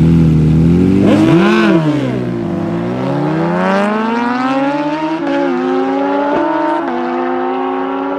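Drag-racing motorcycle engine revved once, then pulling hard under full throttle in a long rising pitch. The pitch drops suddenly at each upshift, about five seconds in and again about a second later.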